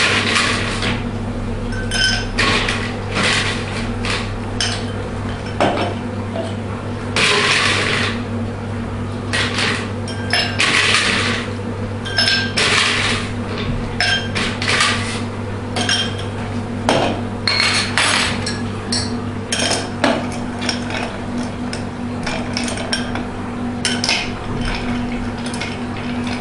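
Ice clinking and rattling against glass and metal as a bar spoon stirs ice in a long drink glass to chill it, with irregular clicks and a few louder rattles. A steady low hum runs underneath.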